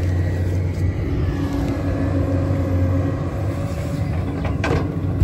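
Excavator's diesel engine running steadily with a low hum as it backfills a trench, with a brief knock near the end.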